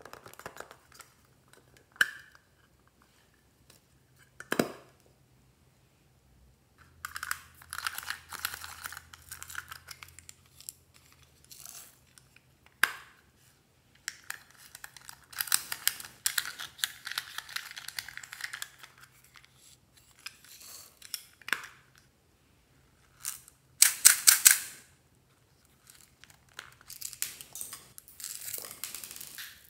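Small plastic toy cases handled and snapped open: a few sharp clicks, and several stretches of rattling and crinkling as their small plastic beads and decorations are shaken out, the loudest about three-quarters of the way in.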